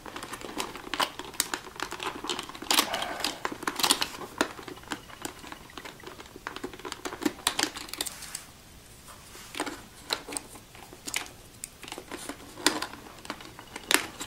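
Irregular plastic clicks and rattles of a membrane keyboard's spacebar and its wire stabilizer being worked into the retaining clips, with a short lull about eight seconds in.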